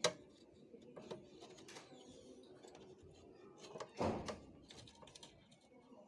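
Clicks and knocks of plastic and metal parts being handled as a photocopier's document feeder is taken apart, with a louder clatter about four seconds in.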